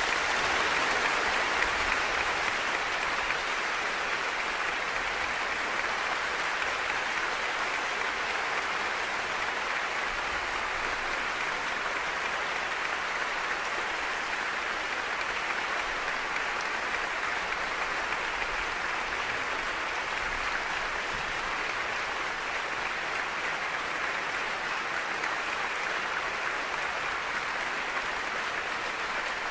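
Large concert-hall audience applauding steadily, a dense, even wash of clapping that is slightly louder in the first few seconds.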